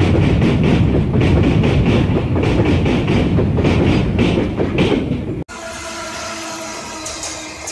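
Covered freight wagons of a goods train rolling past close by, a loud rumble with the wheels clicking over the rail joints. It cuts off suddenly about five and a half seconds in, giving way to a quieter end-screen sound with a few held tones.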